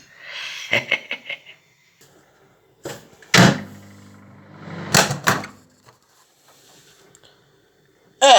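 Microwave oven being worked: clicks and rattles, then two loud clunks of the door about a second and a half apart, with a low hum of the oven between them.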